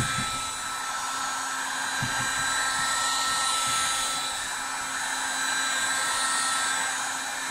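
Matrix electric heat gun running steadily, its fan blowing hot air onto a dented plastic canopy panel to soften it.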